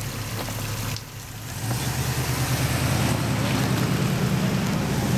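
Hummer SUV engine running steadily at close range, getting noticeably louder a little under two seconds in.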